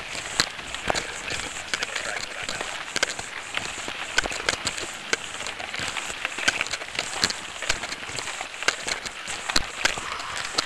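A vehicle driving over a gravel dirt road: a steady rushing noise with many irregular sharp clicks of gravel and small stones striking.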